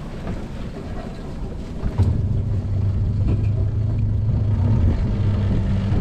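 Outboard motor of a small open fishing boat picks up revs about two seconds in, then runs steadily with a low drone over wind and water noise.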